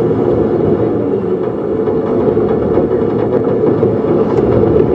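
A motor running steadily, with a few faint clicks over it.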